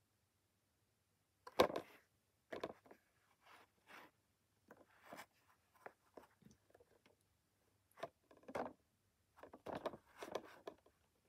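Plastic blister packaging of a toy monster truck crackling and knocking as it is handled, in irregular short clicks and crinkles, loudest about a second and a half in and again near the end.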